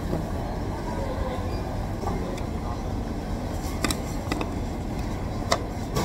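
Steady low rumble of restaurant background noise, with a few sharp clicks, three close together about four seconds in and one more about five and a half seconds in.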